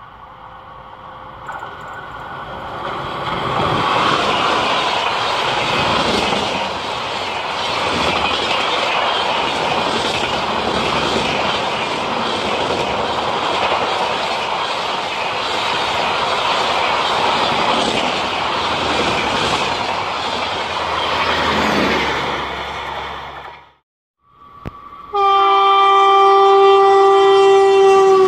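Express train behind a WAP4 electric locomotive passing at speed: a steady rush of wheel clickety-clack over the rail joints that builds up, holds for about twenty seconds, then ends abruptly. After a brief gap, a second WAP4 electric locomotive sounds a long, loud multi-tone air horn blast as it approaches, the horn starting to drop in pitch right at the end.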